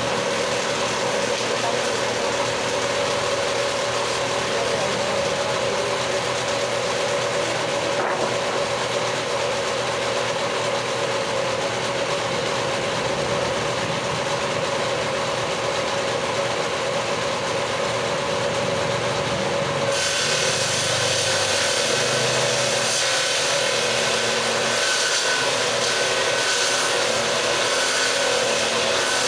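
Electric power tool running steadily while cutting wood, with a steady motor whine; about two-thirds of the way through the sound changes abruptly and becomes brighter and higher-pitched.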